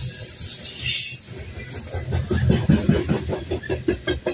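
Freight train of covered hopper cars rolling past: steel wheels on the rails, with a high hiss in the first second and, from about two seconds in, a rapid run of clicks as the wheels pass over the rail.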